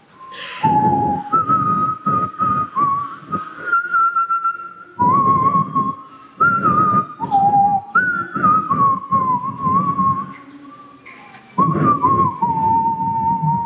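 A man whistling a song's melody into a close headset microphone, in phrases of held notes with short slides between them.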